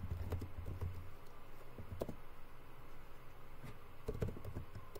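Typing on a computer keyboard: scattered short keystrokes, with a quick cluster of clicks about four seconds in.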